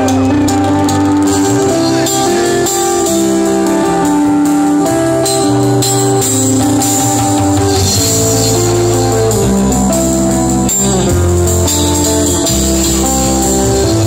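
Live fusion rock band playing an instrumental passage: electric bass and electric guitar lines over drum kit with cymbals and tabla.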